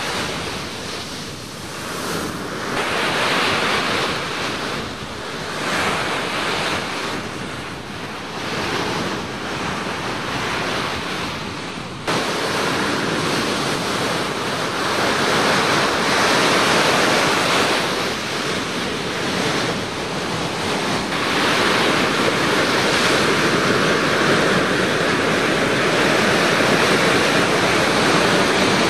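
Ocean surf breaking and washing up the beach, swelling and easing in waves, with wind on the microphone. About twelve seconds in it changes abruptly to a steadier, louder rush of surf.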